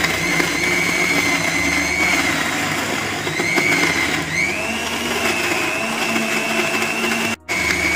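Electric mixer grinder (mixie) running, grinding minced chicken with beetroot and seasonings into a paste: a steady high motor whine whose pitch steps up about four seconds in. It cuts out for an instant near the end and starts again.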